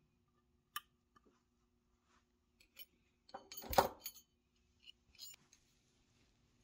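Small pressed-steel toy truck lift gate parts clicking and scraping against each other as they are fitted together by hand: a sharp click about a second in, a louder cluster of metal clatter and scraping a little past the middle, then a few lighter clicks.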